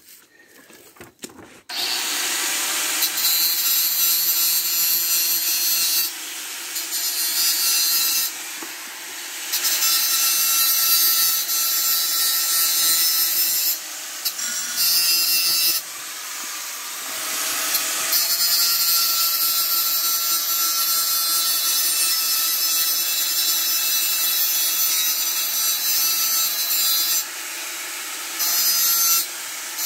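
Electric angle grinder starting up about two seconds in and grinding metal pipe to clean it up, a steady hissing grind that dips briefly several times.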